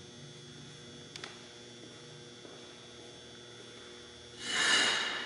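Steady electrical mains hum from high-voltage equipment, with a faint click a little over a second in. Near the end a loud rushing noise swells up and fades over about a second.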